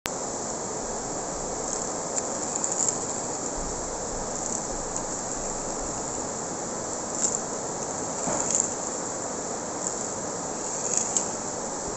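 Steady hiss of room and recording noise, with a few faint clicks and scrapes of small plastic toy cars being pressed and pushed by hand on a tiled floor.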